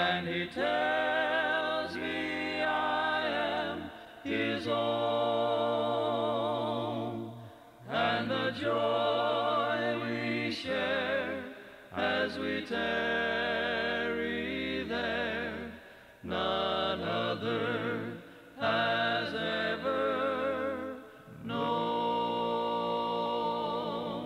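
Gospel vocal group from a 1983 cassette recording, several voices singing a hymn together with vibrato, in phrases of a few seconds separated by short breaks.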